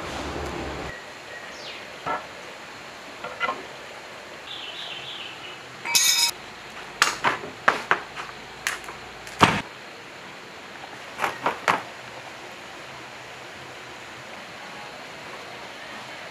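Metal tools and engine parts clinking and knocking against each other on a bare engine block, in scattered sharp knocks. A ringing clink comes about six seconds in, a quick run of knocks follows over the next few seconds, and three quick knocks come near the end.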